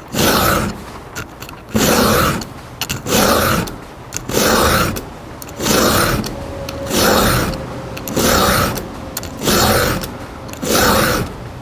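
Round chainsaw file rasping across a chain's cutter tooth in steady, even strokes, about nine of them, one every second and a bit.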